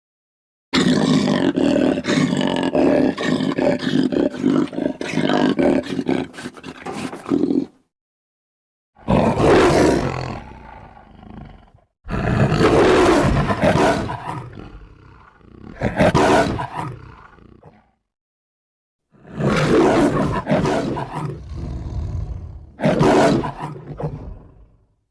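Large wild cat vocalising: a long raspy growl of about seven seconds, then a run of shorter roars and growls separated by silent gaps.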